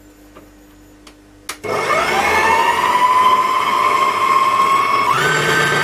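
Electric stand mixer switched on with a click about one and a half seconds in, its motor whine rising to a steady pitch as the wire whisk beats egg whites, then stepping up in pitch near the end as the speed is turned up.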